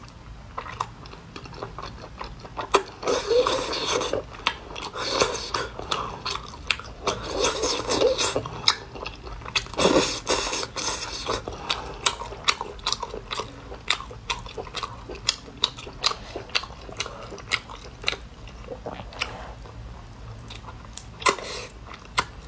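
Close-up chewing and wet mouth sounds of someone eating whole cooked octopus: many small clicks and smacks, with a few louder, longer wet spells.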